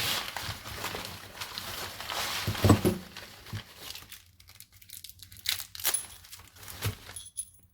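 Packing material crinkling and rustling as a lock is unwrapped, with one loud thump near three seconds in. After that, a few light clicks and knocks as the locks are handled.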